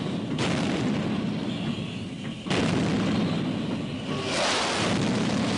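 Twin-barrelled naval gun turret firing, two heavy reports about two seconds apart, each trailing off into a rumble. Near the end a jet aircraft's roar swells in as it flies low past.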